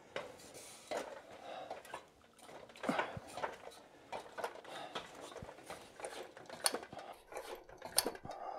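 Irregular knocks, clinks and footfalls of someone climbing a ladder, with a few sharper knocks about three seconds in and again near the end.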